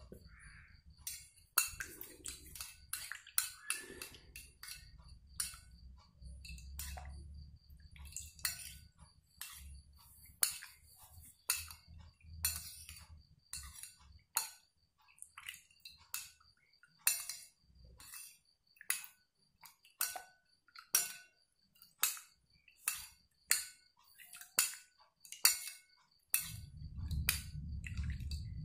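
Metal spoon stirring a slime mixture in a glass plate, clinking against the glass in irregular taps about one or two a second.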